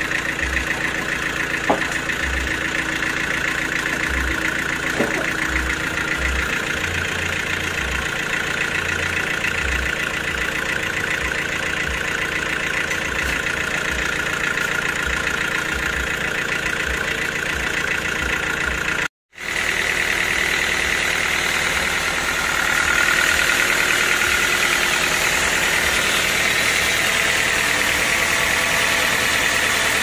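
Band sawmill running steadily: the machine's drive and band blade hum without a break, with two sharp knocks in the first few seconds. It drops out briefly about two-thirds of the way through and comes back slightly louder.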